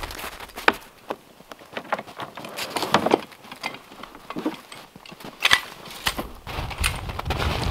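Snow crunching and scuffing, with scattered clicks, knocks and rustles of gear and straps being handled in a plastic sled. A low rumble joins about six seconds in.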